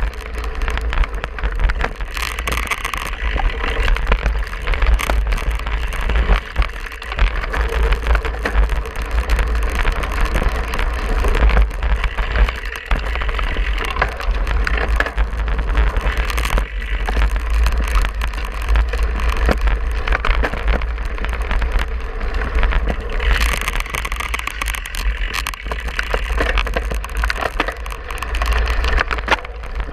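Cyclocross bike riding fast over bumpy grass and dirt, its frame and drivetrain rattling continuously, with a steady low rumble of wind buffeting the handlebar-mounted camera's microphone.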